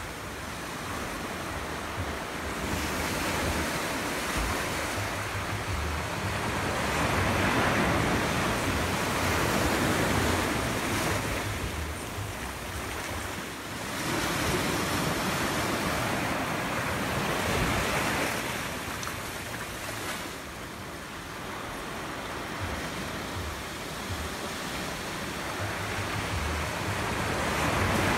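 Sea surf washing ashore in slow swells that rise and fall every few seconds, with wind gusting on the microphone.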